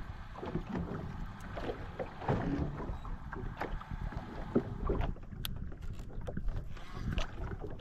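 Water sloshing against a small boat's hull, with wind on the microphone and irregular small clicks and knocks.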